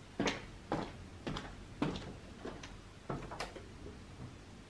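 A string of light, sharp knocks or taps, about two a second, each with a short ring after it, growing fainter toward the end.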